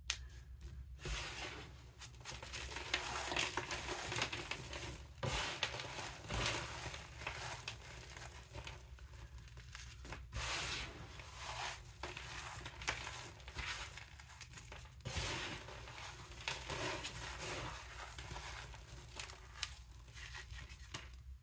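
Chunks of baked baking-soda-and-gym-chalk mix crumbled and crushed between the fingers into loose powder: an uneven run of dry crumbling and crunching, with brief pauses between handfuls.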